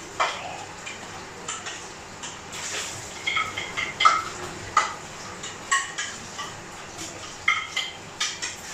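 Pots, dishes and utensils clinking and clattering as they are washed by hand in a kitchen sink. It is an irregular string of sharp knocks and clinks, several of them ringing briefly.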